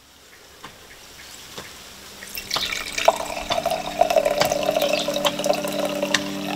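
Liquid dripping and trickling with many small crackling clicks, fading in from silence and growing louder; steady low tones join about halfway.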